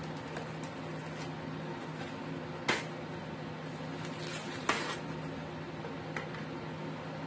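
A cardboard box of plastic wrap being handled and tipped, with two sharp taps about two and a half seconds in and again two seconds later, and a few fainter ticks, over a steady low hum.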